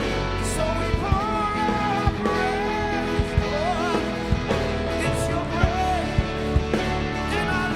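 Worship band playing instrumentally with a steady beat, a sustained bass and guitar-like chords, and a gliding melodic line over them.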